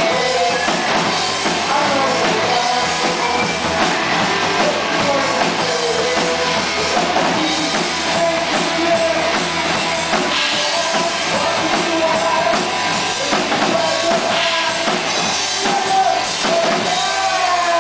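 Rock band playing: drum kit and guitar, with a melody line moving over the beat.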